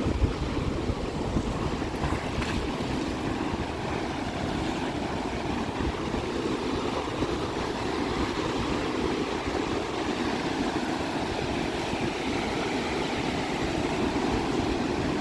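Big lake waves breaking and washing up a sand beach, a steady rush of surf, with wind buffeting the microphone.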